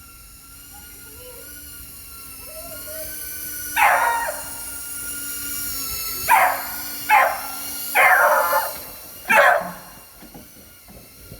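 A dog barking five times in short, loud barks, spread over several seconds. Under the barks runs the steady whine of a small FPV quadcopter's electric motors, creeping slightly up in pitch.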